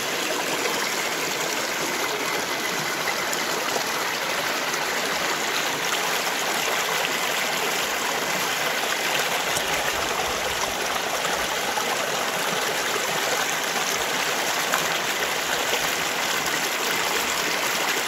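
Shallow river water running steadily over rocks and spilling through small cascades between stones.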